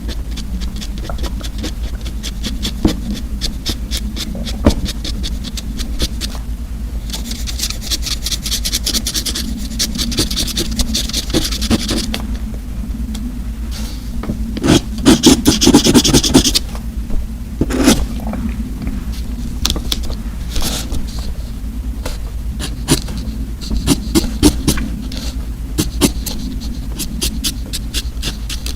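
Close-miked scraping and rubbing of paper and marker props, with many small clicks and crackles over a steady low hum; a louder, scratchier stretch comes about halfway through.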